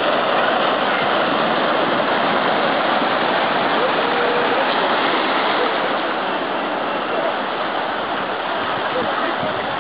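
Rough sea surf breaking and churning over shore rocks: a steady, continuous rush of water that eases slightly about halfway through.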